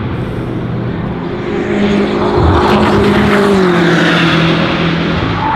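Racing car engines passing at speed, the engine note rising and then falling as a car goes by, loudest around the middle.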